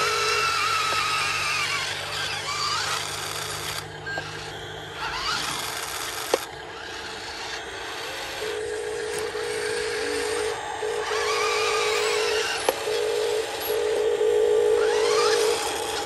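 Small electric drive motor and gearbox of a loaded radio-controlled dump truck whining, the pitch rising and falling several times as the throttle is worked. In the second half a steady buzzing tone comes and goes, with a couple of sharp clicks.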